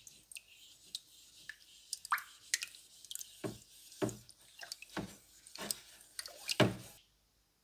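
Steel wool scrubbing a wet cleaver blade in a plastic tub of iron(III) chloride solution, rubbing off the oxide layer between etching passes: wet squishing and dripping with a string of knocks, the loudest near the end. It cuts off about seven seconds in.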